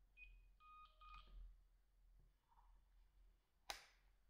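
Faint electronic key beeps from a Samsung SP-R5210pp cordless handset as its buttons are pressed: three short beeps in the first second and a half. About three and a half seconds in, a single sharp click, the handset's flip cover snapping shut over the keypad.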